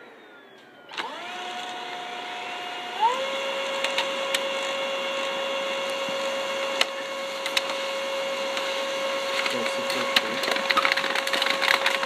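Brother 7820 laser printer's motors starting up about a second in with a short rising whine, stepping up in pitch again about two seconds later and then running steadily, with sharp clicks from the paper-feed mechanism and a denser clicking rattle near the end.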